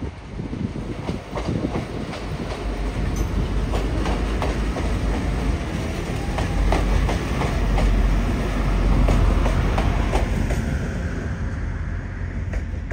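A train passing on the line, its wheels clicking over rail joints over a deep rumble that builds to its loudest about two-thirds of the way through, then eases.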